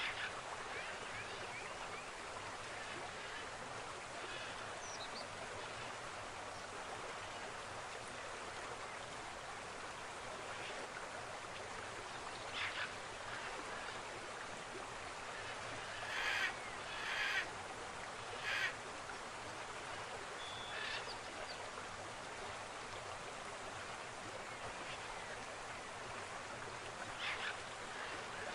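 River water rushing steadily at a river confluence. A few brief sharp sounds stand out, the loudest a cluster of three about two-thirds of the way through.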